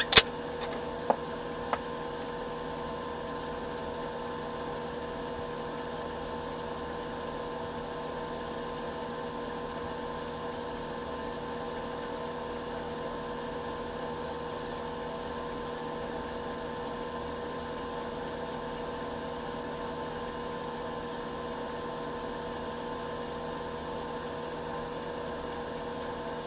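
Steady electric hum of an aquarium filter pump running, even and unchanging, with a few light clicks in the first two seconds.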